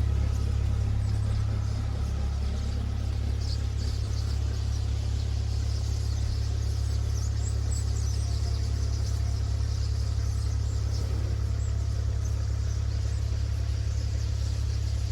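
An engine running steadily, a constant low rumble with no change in speed. Faint short high chirps come and go above it.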